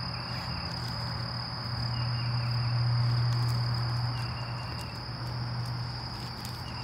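Steady high-pitched insect trill, typical of crickets, with faint short chirps about every two seconds. A low drone swells to its loudest around the middle and then fades back.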